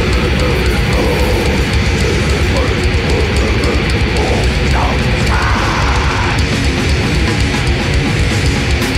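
Metal band playing loud blackened death/thrash metal live: distorted electric guitars and bass over drums, with no break.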